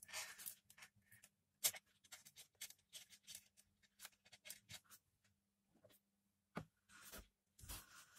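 Earphone cable and thin wires being handled and twisted by hand on a tabletop: faint, irregular rustles and small clicks, with one sharper tick about a second and a half in.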